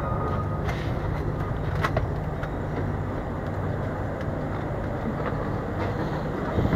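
Passenger train coach rolling slowly into a station, heard from its open vestibule doorway: a steady rumble and hum with scattered sharp clicks and rattles from the wheels and car body.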